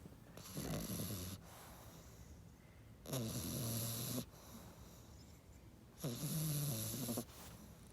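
A sleeping pet snoring, three long snores about three seconds apart, each lasting about a second.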